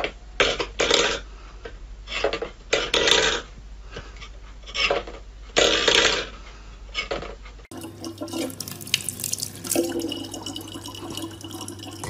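Steel pet bowl knocked and scraped across a wooden floor in a string of short clatters, then, after a cut, a tap's stream running steadily into a plastic bottle.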